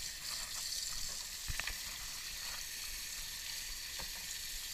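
Kitchen tap running onto bluegill fillets being rinsed by hand in a plastic colander in a stainless steel sink: a steady hiss of water, with a few small knocks and splashes about a second and a half in and again near the end.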